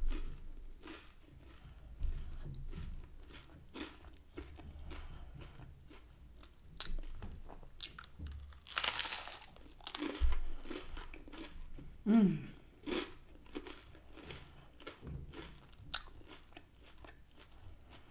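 Close-miked chewing of crusty toasted garlic bread: a string of small crunches and mouth clicks, with one louder, longer crunch about nine seconds in.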